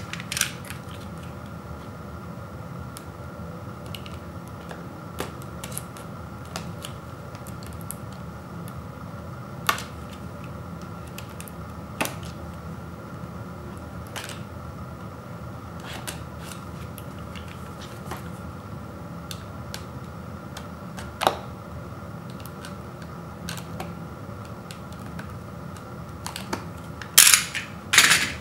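Hands handling a small cardboard box: scattered sharp clicks and taps every few seconds as it is turned over and its tape is cut with a utility knife, then a louder cluster of crackling near the end as the taped flap is worked open. A steady low hum lies underneath.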